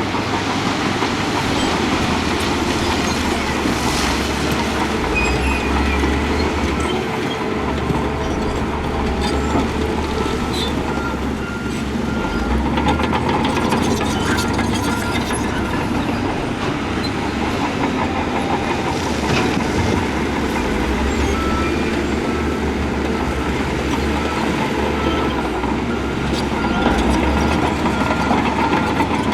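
Heavy earthmoving machinery working: a steady diesel engine sound that swells and eases, with metallic clanking and rattling. A reversing alarm beeps in an even series for stretches in the middle and near the end.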